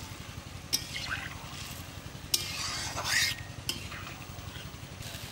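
A long metal ladle stirring a simmering fish curry in a metal karahi, with sharp clinks against the pan near the start and middle and a louder scrape about three seconds in, over a steady low rumble.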